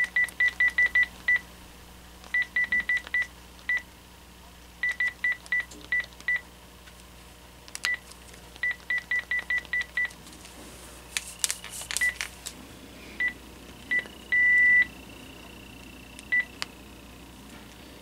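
Panasonic KX-TG6641 cordless handset keypad beeping as keys are pressed: short single-pitch key tones in quick runs of several presses with pauses between. A few sharp clicks come around two-thirds of the way through, and one longer beep follows a little later.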